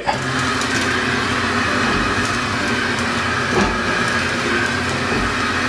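Steady hiss with a low hum underneath from a frying pan on a gas stove, as spring rolls are laid into the oiled pan to fry.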